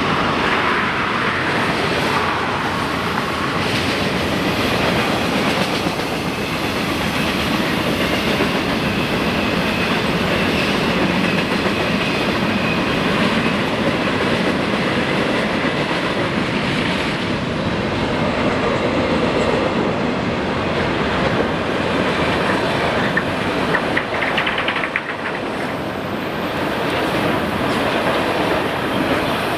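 Florida East Coast Railway freight train's cars rolling past, a loud, steady rumble and clatter of steel wheels on the rail.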